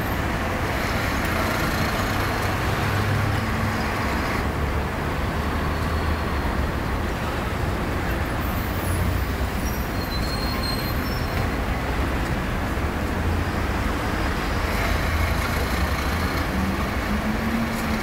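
Steady city road traffic: cars passing on a wide street, with an unbroken low engine hum under the noise of tyres and engines.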